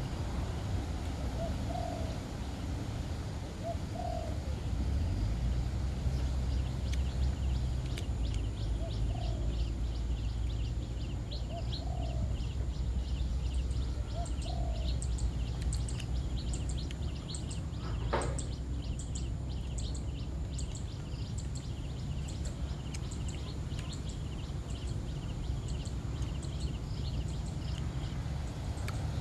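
Doves cooing outdoors: six short, low coos a couple of seconds apart in the first half. Rapid high chirping ticks run through the middle and later part, over a steady low rumble.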